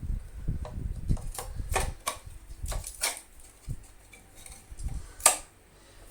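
Irregular clicks, knocks and handling thumps as the brush roll is refitted into a Hoover Junior 119 upright vacuum cleaner, with one sharp, loud click about five seconds in.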